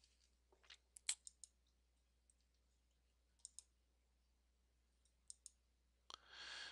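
Faint computer mouse clicks, a few short pairs of clicks a couple of seconds apart, against near silence. Near the end comes a breath.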